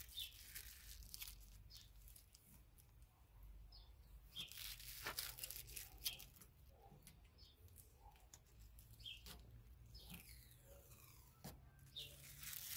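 Adhesive tape being peeled off a car's plastic turn-signal lens and crumpled in the hands: faint, intermittent tearing and crackling.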